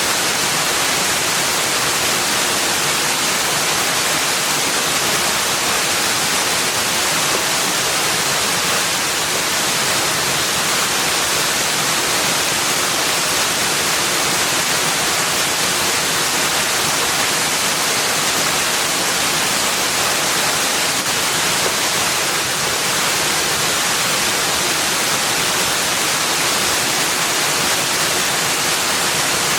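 Running water rushing steadily, an even hiss with nothing else standing out.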